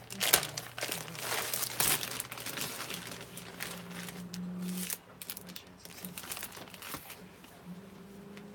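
Clear plastic packaging crinkling and rustling as a wrapped item is handled and opened, busy for about the first five seconds and then dying down.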